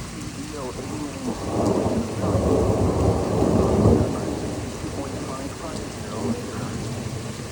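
A long rumble of thunder builds from about a second in, peaks near four seconds and rolls off, over steady rain.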